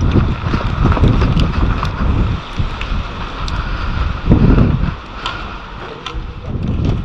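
Wind buffeting the microphone in heavy, uneven gusts, strongest about four seconds in, with a few faint ticks.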